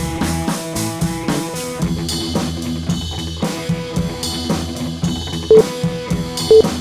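Upbeat background music with a steady drum-kit beat and guitar. Near the end, two short, loud electronic beeps a second apart cut through: the start of an interval timer's countdown to the next exercise.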